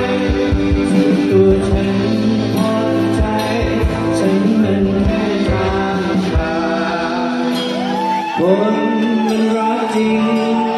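Live rock band playing: electric guitar, electronic keyboard and drum kit together, with a man singing.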